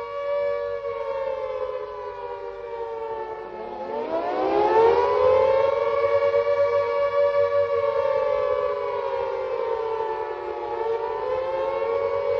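Air-raid siren wailing with two close tones sounding together. Its pitch sags slowly, climbs steeply about four seconds in, holds high, dips, then rises again near the end.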